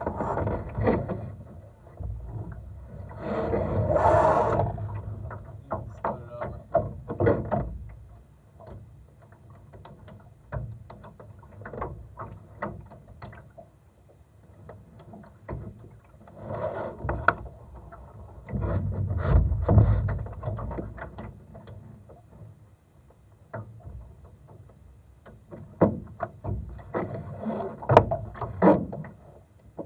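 Sounds aboard a Laser sailing dinghy under way in light wind: irregular clicks and knocks from the hull and its gear, with a few louder swells of rushing water or wind noise, about four seconds in and again about twenty seconds in.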